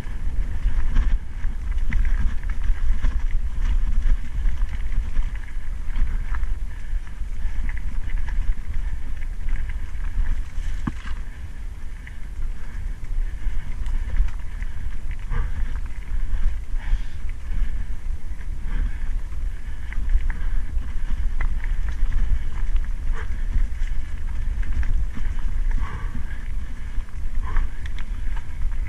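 Mountain bike riding over a stony dirt track: a steady low rumble of wind on the camera's microphone, with tyres crunching over gravel and scattered clicks and rattles from the bike.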